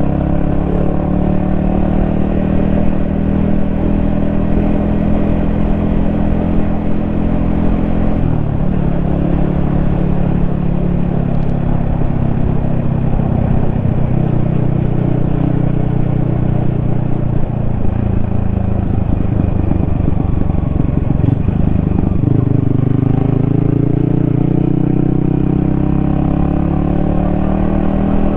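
Yamaha XSR155's single-cylinder 155 cc engine heard on the move: it runs steadily at cruise, then about eight seconds in the engine note drops and a rushing road and wind noise takes over, and from about twenty-two seconds the engine note climbs again as the bike accelerates.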